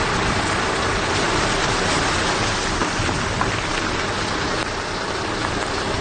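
Steady rain falling, with a vehicle engine running underneath, most likely the parked fire engine.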